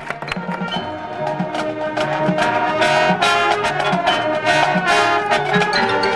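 High school marching band playing: the brass section holds full chords over steady low drum hits, swelling louder about two to three seconds in.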